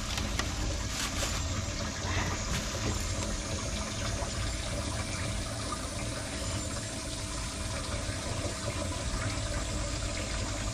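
Water running steadily with a faint steady hum under it, and a few light clicks in the first couple of seconds.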